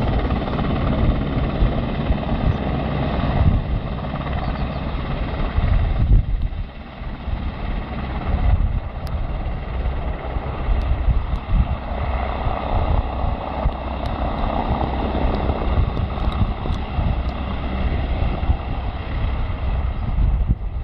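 Helicopter coming in to land, its rotor noise mixed with wind buffeting the microphone.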